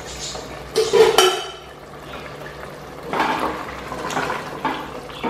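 A metal pot lid clinks with a short ring about a second in. Then a wooden spoon stirs through thick, wet curry in a stainless-steel pot, with irregular scraping and knocking against the pot.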